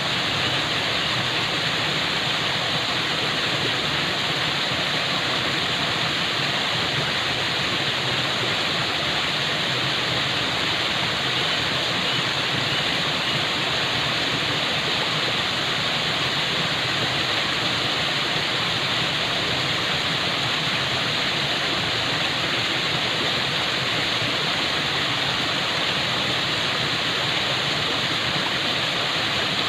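Falling water: a steady, unbroken rush with a strong hiss, like a waterfall.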